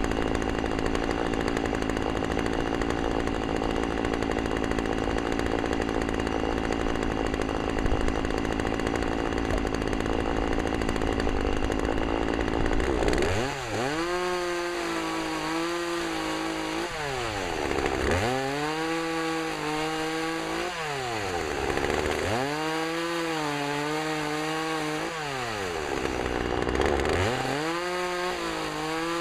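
Gas chainsaw cutting limbs into firewood lengths. For the first half it runs steadily under load, with a thick, noisy sound. After an abrupt change about halfway through, the engine revs up, holds, and drops back to idle four times in a row, one cut after another.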